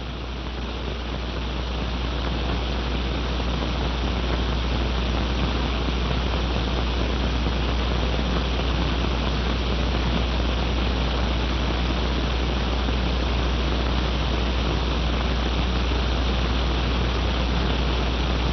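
Steady hiss with a low hum underneath, the background noise of an old 16mm film soundtrack, rising a little over the first few seconds and then holding level.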